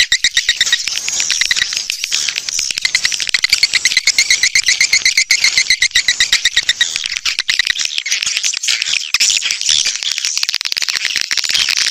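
Recorded calls of edible-nest swiftlets played as a lure to draw swiftlets to nest: a dense, rapid twittering of many quick pulsed chirps. About seven seconds in, the even pulsing gives way to a thicker, higher chitter.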